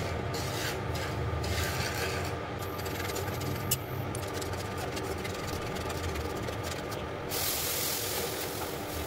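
Wooden spatula scraping and stirring dry semolina in a frying pan. About seven seconds in, a loud hiss as liquid hits the hot pan and boils off in steam.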